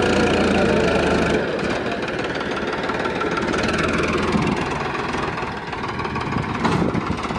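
Farmtrac 45 tractor's diesel engine running under load as it pulls a thresher through soft sand. A steady low hum gives way, about a second and a half in, to a quieter, less even engine sound.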